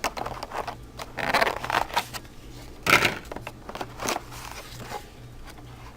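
Packaging being handled as items are taken out of a phone box: irregular rustling of paper and plastic with a few small clicks and knocks, the loudest bursts about a second in and near three seconds in.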